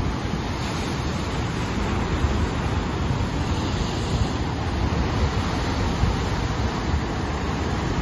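Heavy ocean surf breaking and churning over a rocky shoreline: a continuous rush of white water with a deep, uneven rumble underneath.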